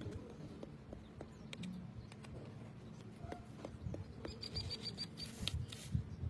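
Soft, scattered knocks and handling sounds, with a quick run of about six short, high bird chirps a little past four seconds in and a sharper knock near the end.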